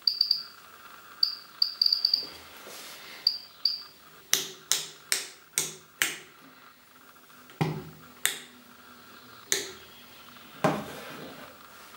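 FAG IM 7001 dosimeter sounding its count signal: short high-pitched chirps at irregular intervals through the first four seconds, each marking detected radiation pulses. Then its rotary selector switch is turned: five sharp clicks in quick succession about four seconds in, followed by four more spaced clicks as the knob is worked.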